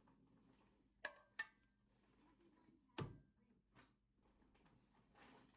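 Near silence with a few faint, sharp clicks about a second in and a soft knock about three seconds in.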